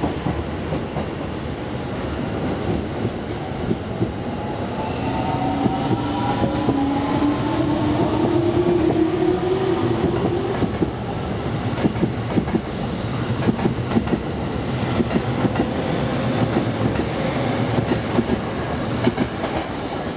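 JR East 209 series 500-subseries electric commuter train pulling away from a station platform. The motor whine rises in pitch as it picks up speed over the first half, then the wheels clack steadily over the rail joints as the cars roll past.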